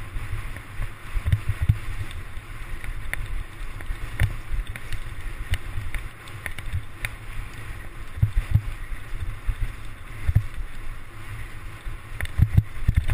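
Mountain bike jolting and rattling over a rough forest trail, with wind rumbling on the microphone and scattered sharp knocks and clicks from the frame and handlebars.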